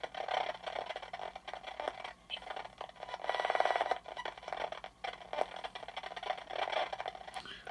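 Polterpod spirit box putting out choppy, sweeping radio static, a hiss that keeps breaking and changing. It grows louder with a fast crackle for about a second in the middle.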